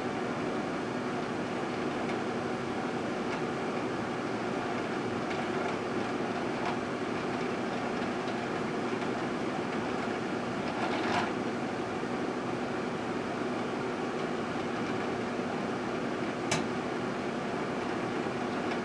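Microwave oven running with a steady hum and fan drone, a short crackle about eleven seconds in and a sharp click near the end.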